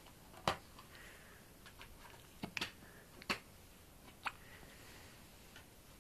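A four-month-old baby hiccuping: short, sharp clicks, about five of them at uneven intervals of one to two seconds.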